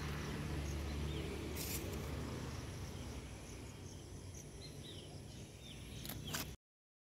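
Outdoor ambience: a few short, faint bird chirps over a low steady rumble and hiss, with a couple of clicks near the end. The sound cuts off abruptly about six and a half seconds in.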